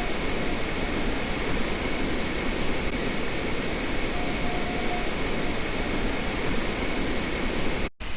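Steady hiss of even noise with no distinct events, broken by a sudden brief drop to silence near the end.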